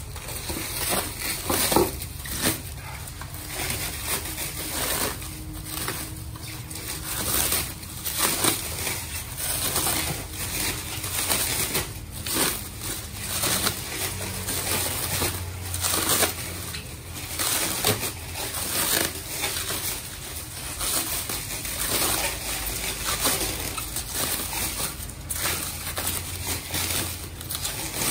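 Plastic cling wrap crinkling and rustling in irregular crackles as hands pull it off a wrapped car-audio part.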